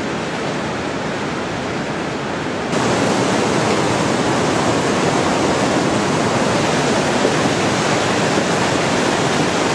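Fast whitewater mountain river rushing over boulders, a steady loud wash of water that steps up louder about three seconds in.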